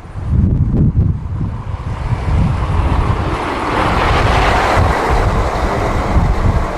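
Jet airliner's engines at take-off power, a broad roar that swells to a peak about four seconds in and then eases, with heavy wind buffeting on the microphone throughout.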